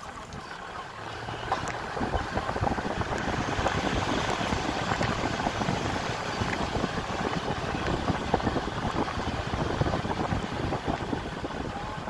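A vehicle driving along a road: steady engine and road noise, with wind buffeting the microphone.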